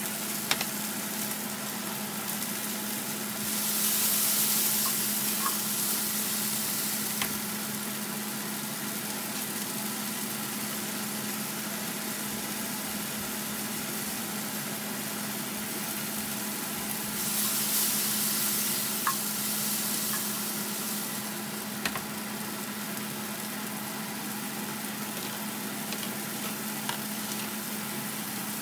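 Vegetables frying in an oiled pan, sizzling steadily over a constant low hum, the sizzle swelling louder twice for a few seconds each, with a few light clicks.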